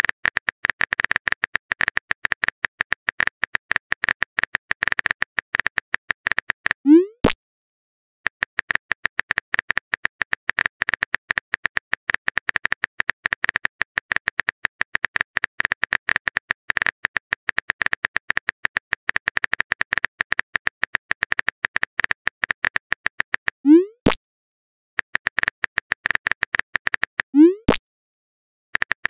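Texting sound effects: rapid phone-keyboard typing clicks in long runs, broken three times by a short rising pop as a message is sent.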